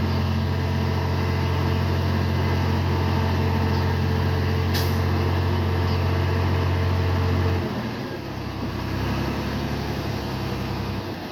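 Diesel engine of heavy earthmoving equipment running steadily with a deep hum, dropping off to a lower, rougher sound about seven and a half seconds in. A brief hiss about five seconds in.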